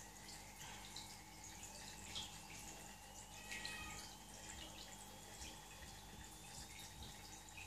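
Faint dripping and trickling of water in an aquarium, typical of a filter's return splashing at the surface, over a steady hum.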